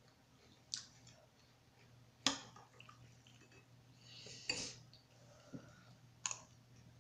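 A metal spoon clinking against a cereal bowl four times, sharp separate clinks about every second and a half to two seconds, as Fruity Pebbles cereal is scooped up and eaten.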